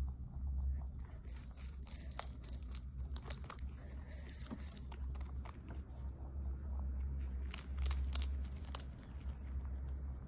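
Rabbit chewing a crispy dried pumpkin leaf: irregular crisp crunches and crackles, over a low steady hum.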